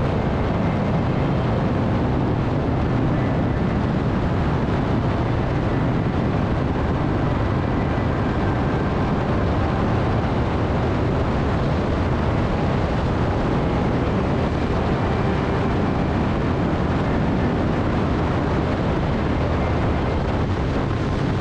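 Harley-Davidson motorcycle riding along at a steady pace: engine running under a steady rush of wind and road noise.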